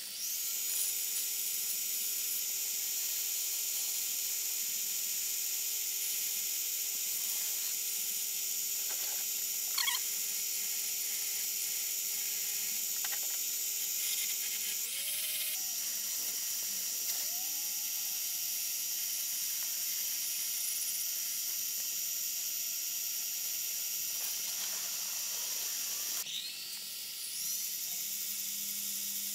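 Mini-lathe motor running at speed with a steady high whine while 1200-grit sandpaper is pressed against the spinning steel tip to polish it. The motor's pitch dips and wavers briefly about halfway through.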